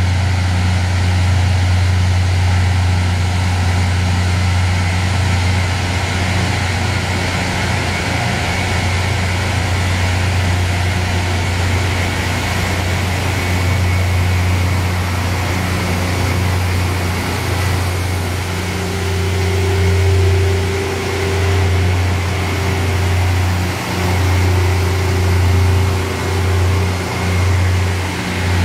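Loram rail grinding train at work: a steady deep diesel drone under the hissing grind of its rotating stones on the rails. A higher hum joins about two-thirds of the way through, and near the end the sound swells and dips about once a second as the grinding cars pass close by.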